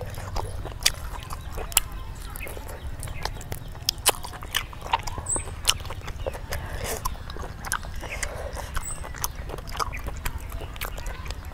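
Close-up chewing of grilled chicken: wet mouth clicks and crisp crackles, irregular and several a second, over a steady low rumble.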